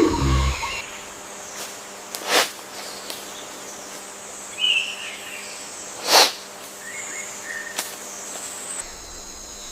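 Wild outdoor ambience: a steady high insect chorus, a short bird chirp and a few faint chirps, and three sharp cracks. A loud low animal call ends within the first second.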